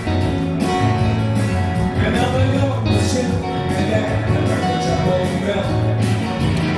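Live band playing: vocals over electric guitar and keyboard, with a bass line and a steady beat.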